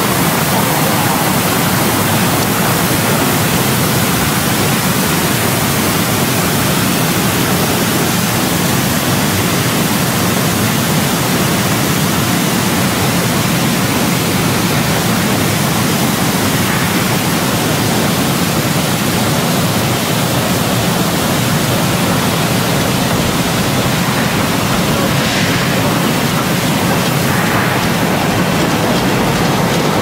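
Bubble-type potato strip washing machine running: its tank of water churned by air bubbles and overhead spray nozzles makes a loud, even rushing of water.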